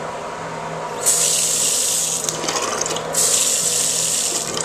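Bathroom sink faucet turned on, its water stream hissing into the basin from about a second in, with a brief break near the middle before it runs again.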